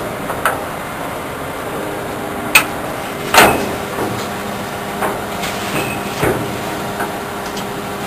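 Irregular knocks and bangs over steady background noise with a faint low hum; the loudest bangs come about two and a half and three and a half seconds in.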